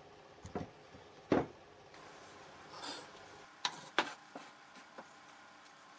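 Small metal parts and hand tools being picked up and set down on a workbench: a string of separate knocks and clinks, the loudest about a second and a half in, a brief scrape near the middle, and two sharp clinks close together about four seconds in.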